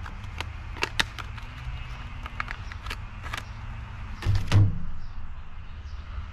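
Clicks and knocks of a plastic drill-bit case being handled as a step drill bit is taken out of it, with a louder double knock about four seconds in, over a steady low hum.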